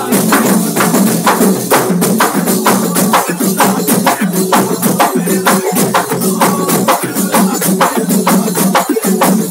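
Several hand-held frame drums (daf) beaten together in a fast, even rhythm, over a steady low sustained tone.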